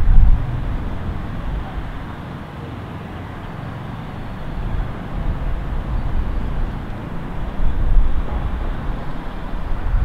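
City road traffic from the streets below: a steady wash of vehicle noise with a low rumble. It is loudest at the start as a vehicle passes, then eases off, and swells again about three-quarters of the way through.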